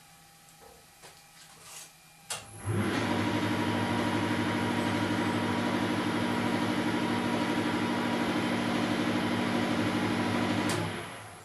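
A few light clicks of hands working at the lathe chuck, then the Weiler Matador SV lathe starts abruptly and runs with a steady hum at 800 rpm before winding down near the end.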